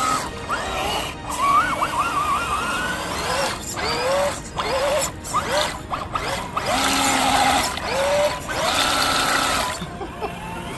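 Electric motor and drivetrain of a scale RC crawler whining in short throttle bursts, the pitch sweeping up and down again and again as the truck churns through deep mud.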